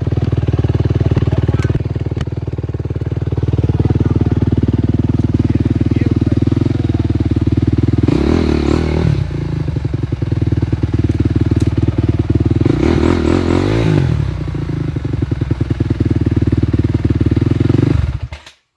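Dirt bike engines running close by at a steady idle, with two short surges of throttle about eight and thirteen seconds in. The sound cuts out abruptly just before the end.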